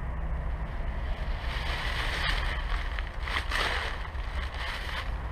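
Steady low wind rumble on the microphone, with rustling and handling noise as an angler moves on a leafy riverbank to cast a spinning rod. A single sharp click comes a little over two seconds in.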